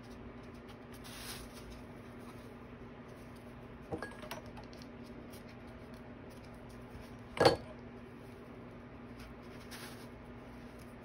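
A pink hot glue gun being handled while fabric is glued onto a styrofoam ball: a couple of light clicks about four seconds in, then one sharp knock about two-thirds of the way through as the gun is set down on the table. A steady low hum runs underneath.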